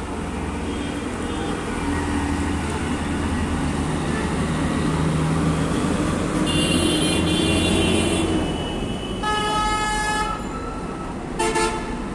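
Street traffic: heavy vehicle engines running steadily, with horns honking three times. A high-pitched horn sounds about six seconds in, a lower, longer one around nine to ten seconds, and a short blast near the end.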